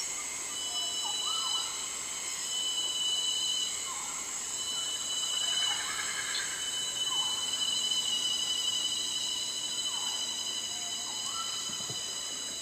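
Tropical rainforest insect chorus: several insects holding steady, high-pitched tones, with short calls scattered through.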